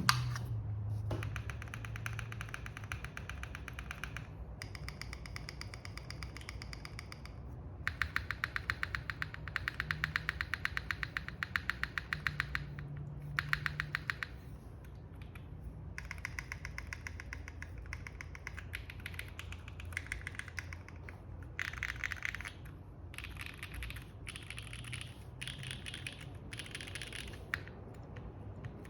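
Typing on a Moment by JJW mechanical keyboard with Owlab Tungsten switches lubed with Krytox 205g0, a polypropylene plate in a gasket mount and GMK Pono keycaps. Fast runs of keystrokes come in bursts of a few seconds, with short pauses between.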